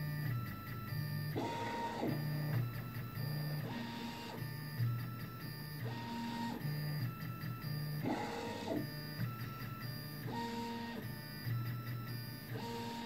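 Original Prusa i3 3D printer's stepper motors whining in a string of steady tones that change pitch every half second to a second. The extruder carriage is moving from point to point while the PINDA probe measures the bed during mesh bed levelling calibration.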